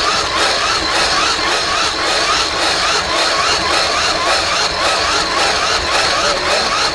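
Steady roar of the wood fire in a maple syrup evaporator's firebox, with a wavering whine that rises and falls about three times a second.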